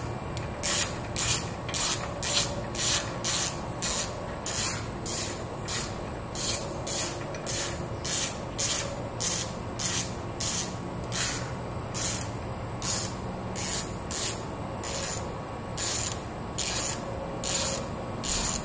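Socket ratchet clicking in quick, even strokes, about two a second, as it runs a battery tie-down nut down its threaded rod.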